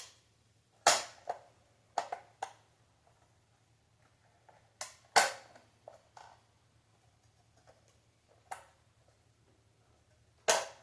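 Plastic front plate of an Xbox Series S snapping and clicking as it is popped off and pressed back on its clips: a string of sharp, irregular snaps, the loudest about five seconds in.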